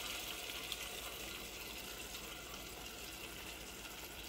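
Steady, fairly faint hissing from a pan of chicken just covered with blended onion-tomato paste as the wet mixture heats, easing off slightly.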